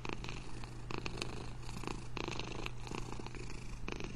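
A long-haired black cat purring steadily, a continuous rapid pulsing rumble.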